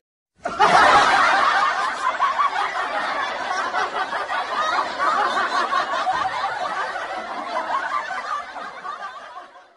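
Laughter from a crowd of many people, starting suddenly and slowly fading out.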